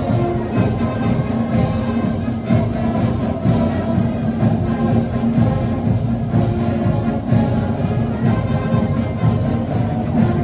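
High school marching band playing a tune: brass holding sustained notes over percussion that strikes steadily about twice a second.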